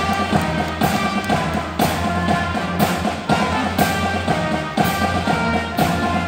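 High school concert band playing a military medley, brass and woodwinds over a steady drum beat of about one stroke a second.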